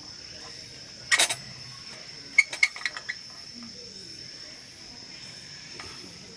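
A steady high-pitched insect trill, typical of crickets, runs under everything. About a second in there is a short clatter, and a little later a quick run of five or six sharp clicks and knocks, the loudest sounds here, as of camp gear being handled.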